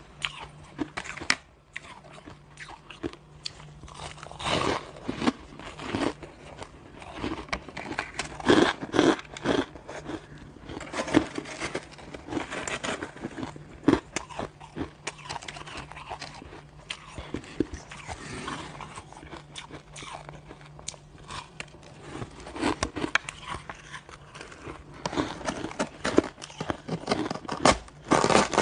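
Crushed, coloured shaved ice being bitten and chewed close to the microphone: irregular crunching, with a plastic spoon digging into the ice now and then.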